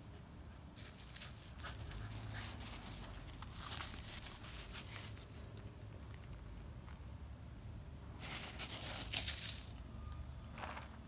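Footsteps crunching on a gravel path, in two spells of rapid crunches, the louder one about eight seconds in, with a short last crunch near the end.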